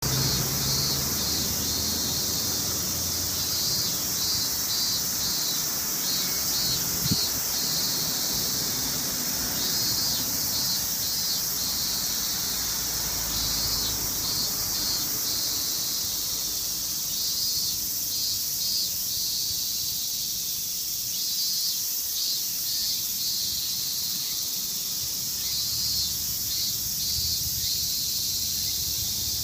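Cicadas calling in chorus: a steady, dense, high-pitched buzz, with groups of quick pulsing calls coming and going over it every few seconds.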